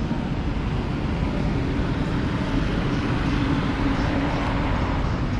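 Busy street ambience: a steady rumble of road traffic, with a low engine hum that stands out about a second and a half in and fades a couple of seconds later.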